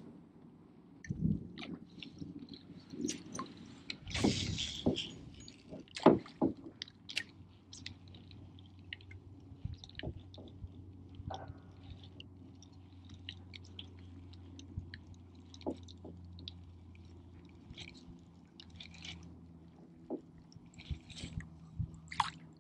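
Scattered clicks and knocks of fishing gear and the kayak's hull as an angler fishes from it. The loudest knocks come in a cluster around four to six seconds in, and a faint low steady hum runs through the middle.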